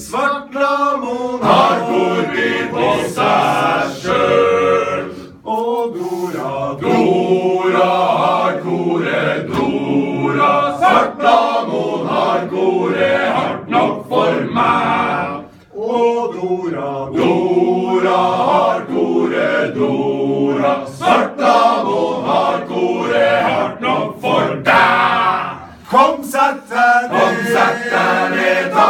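Men's choir singing a cappella, with brief pauses between phrases.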